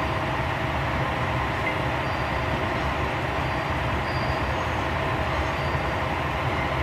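Kyoto Tango Railway KTR8000 diesel railcar standing and idling, a steady low engine sound with a constant hum over it.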